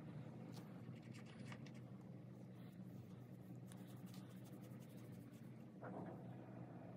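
Small flat paintbrush scrubbing white paint onto a black canvas tote bag: faint, scratchy brush strokes on the fabric weave, over a steady low hum.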